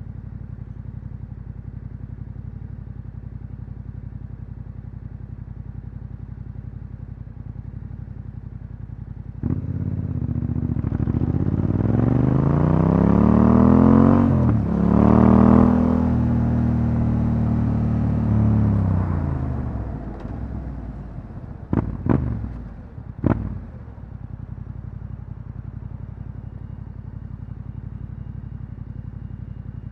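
Yamaha Ténéré 700 parallel-twin engine with an Akrapovic exhaust, ticking over steadily at first. About a third of the way in it pulls away hard, revs rising through a quick gear change, then holds speed and falls off. Two short throttle blips come near the two-thirds mark before it settles back to the low steady note.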